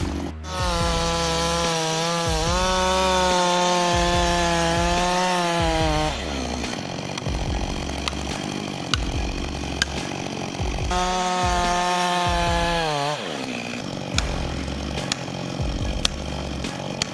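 Chainsaw running at full throttle, its pitch sagging and wavering as it works through wood. The revs drop back about six seconds in, climb again near the middle and fall off about two seconds later, with a few sharp clicks in the lower-revving stretches.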